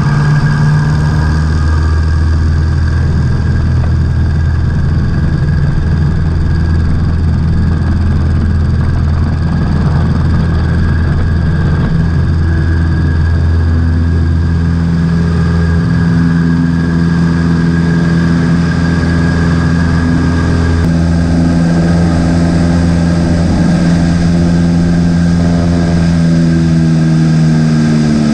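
Cessna 150's four-cylinder Continental O-200 engine droning steadily as heard inside the cabin in cruise flight, its pitch shifting slightly a few times as the pilot adjusts power to hold formation.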